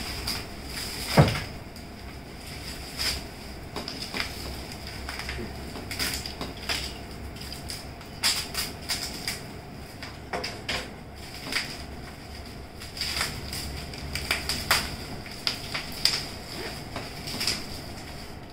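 Plastic wrapping crackling and crinkling as it is cut with a knife and peeled off a boxed book, in a steady run of short crackles, with one sharper knock about a second in.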